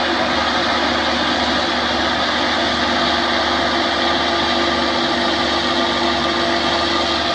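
Farm machinery engine running steadily at a constant, unchanging level.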